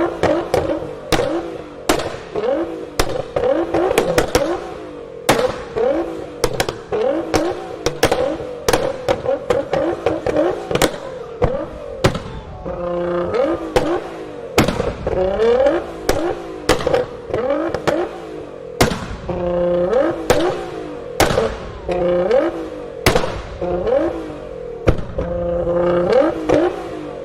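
Tuned Nissan GT-R with a custom exhaust being revved, its exhaust popping and banging over and over with sharp cracks, roughly one or two a second, between rises and falls of the engine note.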